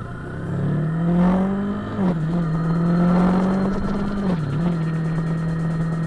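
Yamaha R3's parallel-twin engine under way: revs climb for about two seconds, drop sharply at a gear change, then hold steady with one brief dip in revs a little after four seconds in.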